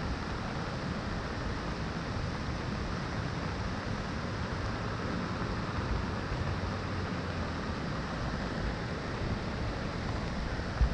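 Steady rushing noise of a swollen river in flood, with wind buffeting the microphone in a low, uneven rumble.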